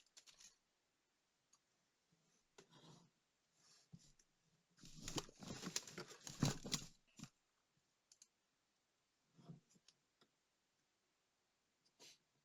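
Small clicks and scrapes of tools and small parts being handled on a work surface, with a denser run of scraping and clicking from about five to seven seconds in.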